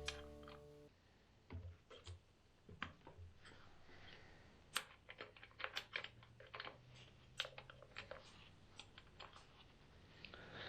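Faint, scattered clicks and a few light knocks from hands working on a chainsaw and its parts, irregular and spread through the stretch. The likely work is loosening the bar nuts and taking off the side cover.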